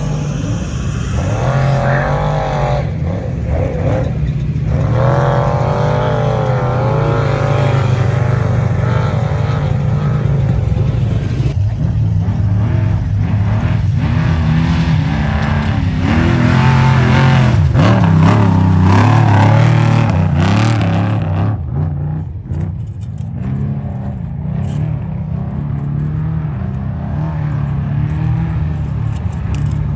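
Trophy truck race engines running hard, their revs rising and falling over and over above a steady low drone, loudest a little past halfway.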